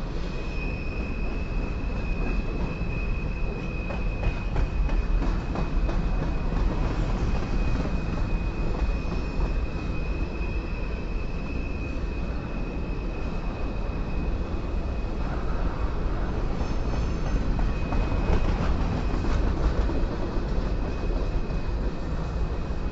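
Loaded covered hopper cars of a freight grain train rolling past with a steady low rumble and scattered wheel clicks. A thin, steady high-pitched wheel squeal runs over it and fades near the end, typical of wheel flanges grinding on a curve.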